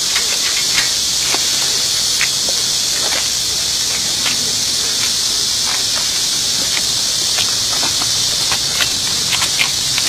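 Steady high hiss with a few faint scattered clicks.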